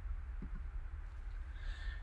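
Quiet room tone: a low steady hum with faint hiss.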